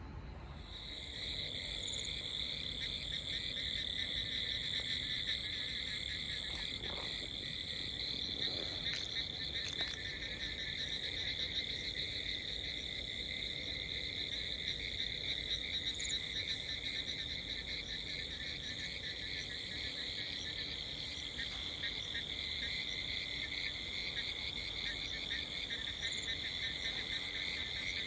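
A dense, steady chorus of high-pitched, rapidly pulsing animal calls, such as frogs or insects calling together. It comes in about a second in and carries on without a break.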